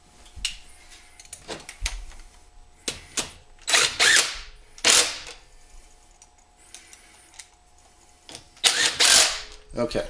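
Cordless driver with a long extension bit running in short bursts, three times, as it spins bolts onto the carburetor of a Predator 212 engine. Small clicks of the bit and bolts being handled come before the first run.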